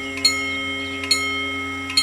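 Level crossing warning bells of an Italian TD 96/2 crossing striking in an even, slow rhythm, about one strike every 0.85 s, three times; each strike rings on with clear bell tones. A steady low hum runs beneath.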